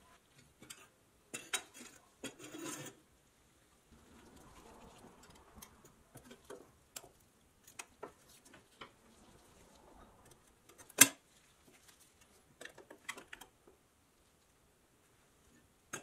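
Small metallic clicks and scrapes as a flat tool pries a rusty metal strip and its bent tabs away from a pressed-tin toy car body, with one sharp metal snap about eleven seconds in.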